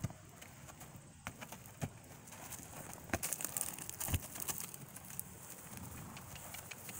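A horse walking over gravel and wood chips: a few faint, irregular hoof thuds and crunches.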